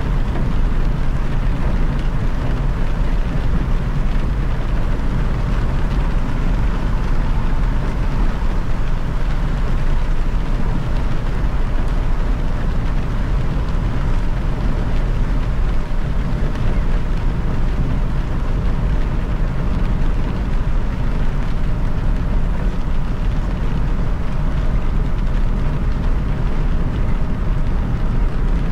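Car driving on a wet expressway in the rain: a steady, unbroken low rumble of road and tyre noise with a hiss above it.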